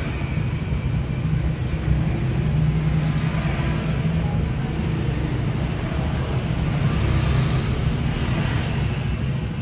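Steady low mechanical rumble, like motor vehicle engines running, holding level without a break.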